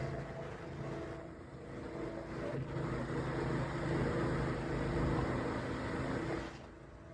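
Motor vehicle running with road noise: a steady low engine hum under a wash of noise, which drops away sharply near the end.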